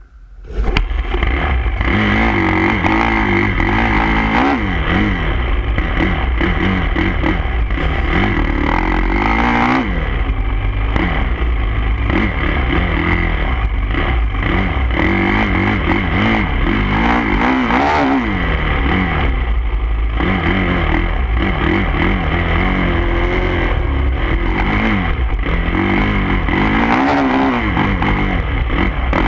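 Dirt bike engine under hard riding, heard up close from the bike itself: it comes in suddenly about half a second in, and its pitch climbs and drops again and again as the rider accelerates and shifts.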